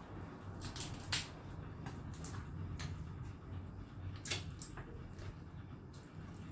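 Close-up eating sounds: a string of irregular sharp clicks and cracks from chewing and handling food, over a low steady hum.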